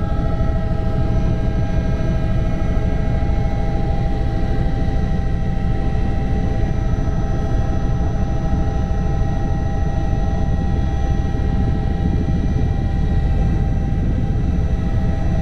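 Helicopter in flight heard from inside the cabin: a loud, steady low rumble of engine and rotor with a steady whine over it.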